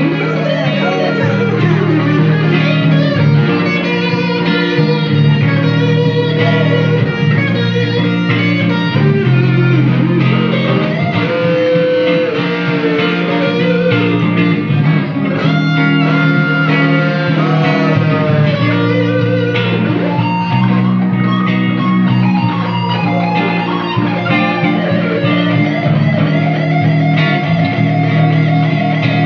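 Slow blues guitar solo, with the lead line bending and sliding between notes over a steady guitar accompaniment, played live.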